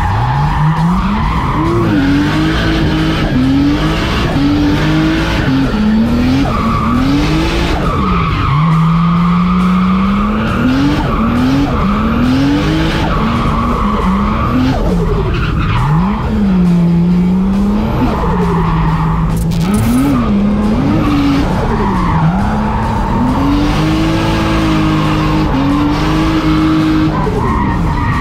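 Nissan 350Z drift car heard from inside the cockpit. The engine revs up and down over and over, its pitch climbing and falling back about every second and held high a few times, while the rear tires squeal through the slides.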